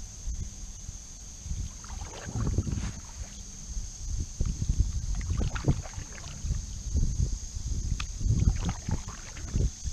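Canoe paddles dipping and pulling through river water beside an aluminum canoe, splashing in irregular strokes.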